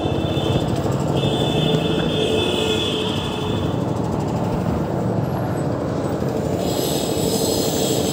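A motor vehicle engine running steadily, with general street noise.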